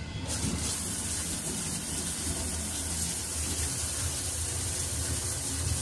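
Train-compartment shower with an overhead rain shower head, switched on a split second in and then spraying steadily: an even hiss of falling water.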